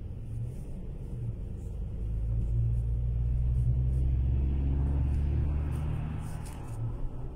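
Car engine and road rumble heard from inside the cabin, a low steady drone that swells about two seconds in as the car drives off through the junction, holds for a few seconds, then eases off near the end.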